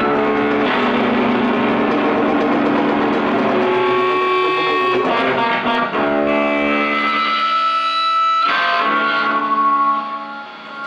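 Live band music led by an electric guitar through distortion and effects, playing sustained ringing chords; the low end drops away about eight seconds in and the music eases down near the end.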